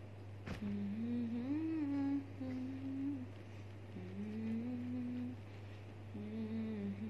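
A woman humming a tune to herself in three short phrases, the pitch gliding up and down, over a steady low electrical hum. A single click sounds about half a second in.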